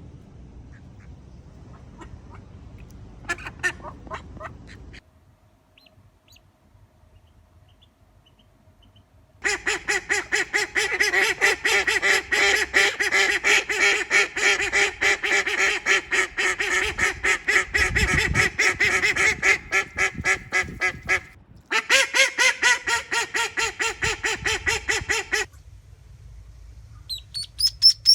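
Female call duck quacking in long rapid runs of loud quacks, several a second, that stop briefly and then start again. High, thin chirps begin near the end.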